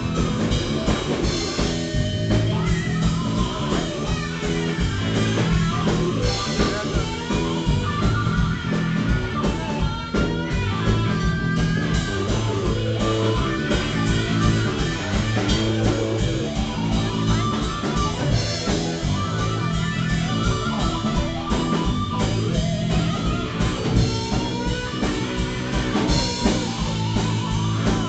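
Live rock band playing loudly: electric guitar lines over bass and a steadily beaten drum kit.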